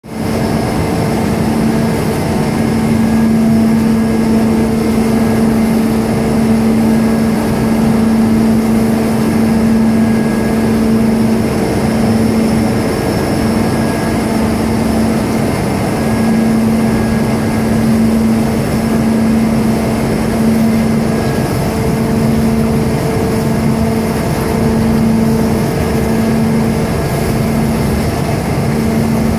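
Oilseed press plant machinery running steadily: a loud, constant mechanical noise with a steady low hum that flutters on and off a little in the second half.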